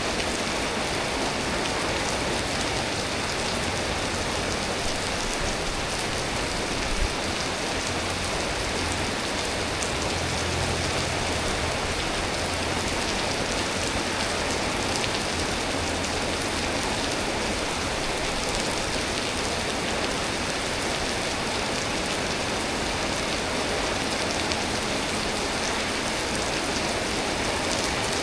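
Steady, heavy rain falling and pattering on surfaces, an even hiss with no break.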